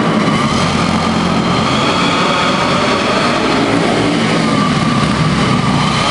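Several racing kart engines running at speed at once, loud and continuous, their pitch rising and falling as the karts go round the dirt oval.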